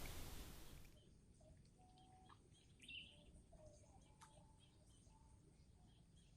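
Near silence with faint birds calling: scattered short chirps, one a little clearer about three seconds in. A rushing noise fades out during the first second.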